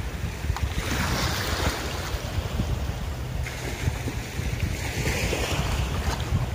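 Steady wind buffeting the microphone over sea water washing and splashing, with two stronger spells of splashing, about a second in and again about five seconds in.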